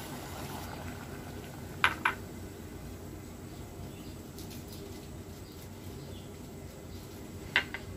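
Sago pearls poured into a steel pot of water over a steady low background noise, with two short sharp clicks about two seconds in and one more near the end.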